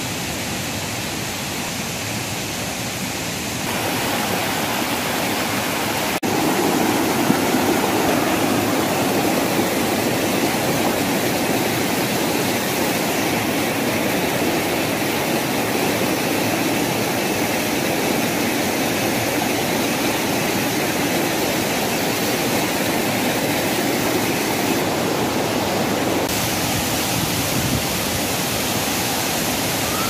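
Steady, loud rush of a waterfall and fast-flowing stream water. It jumps in level a few times where the footage cuts abruptly.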